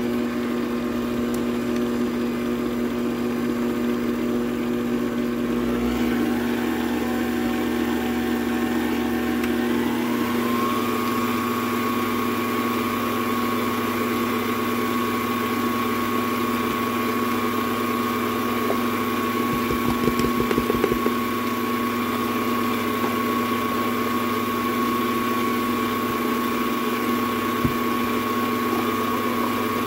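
Electric mixer motor running steadily as it mixes slime in a bowl, its whine rising in pitch about ten seconds in. A brief rattle comes about twenty seconds in.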